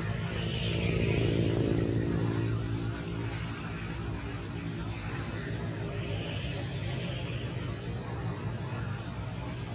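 A steady low engine drone, a little louder for the first few seconds, with a faint hiss above it.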